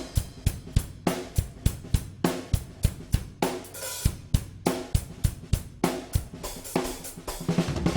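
Miked drum kit played in a steady groove of kick, snare and hi-hat strokes, with Paiste PST-series budget brass cymbals ringing over it.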